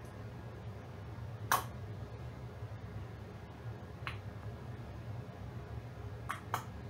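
Sharp clicks from a handheld adjustable pipette being handled while measuring resin, over a low steady hum: a loud click about one and a half seconds in, a softer one near four seconds, and a quick pair near the end.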